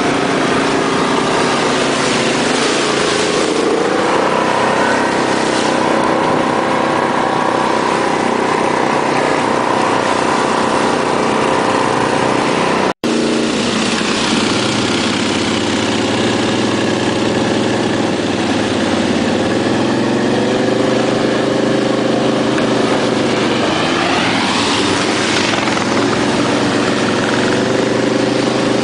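ATV engine running under load, its pitch repeatedly rising and falling as the throttle is worked, with a sharp rise a few seconds in and again near the end. The sound breaks off for an instant about 13 seconds in.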